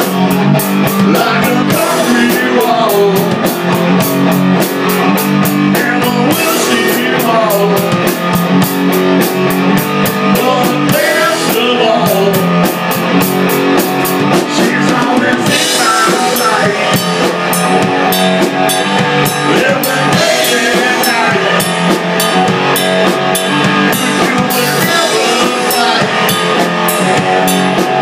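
Live rock jam: a Gretsch drum kit played with a steady, fast cymbal beat, with a guitar playing along.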